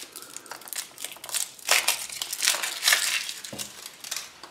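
Foil wrapper of a Kinder Surprise chocolate egg crinkling and crackling as it is peeled off and crumpled, in a run of irregular rustles that dies away near the end.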